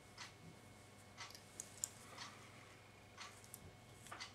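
Near silence with a few faint, scattered rustles and ticks of hands handling tying thread and fly materials at a fly-tying vise.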